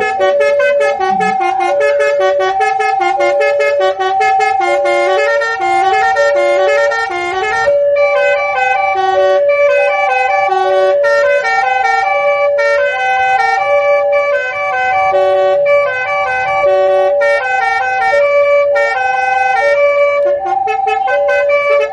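Railway level-crossing warning alarm sounding with the barrier down: an electronic two-tone chime alternating low and high about every half second, repeating steadily, with higher chiming notes layered over it.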